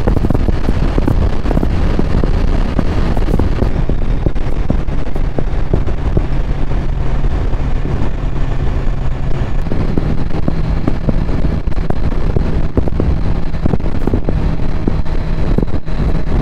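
Motorcycle engine running steadily at road speed under heavy wind buffeting on the microphone. The engine note shifts slightly in pitch about ten seconds in.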